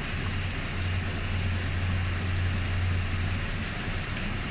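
Toshiba 5 kg washing machine running with water in it: a steady low hum over a wash of water noise, the hum dropping away about three and a half seconds in.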